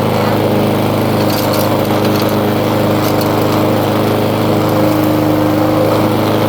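Small lawn mower engine running steadily at a constant speed.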